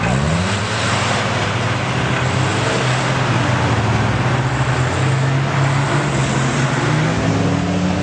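Off-road 4x4's engine revving up at the start, then running hard at a steady pitch under load, and revving higher again near the end.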